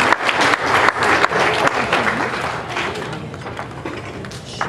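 Audience applauding, dense at first and dying away from about three seconds in.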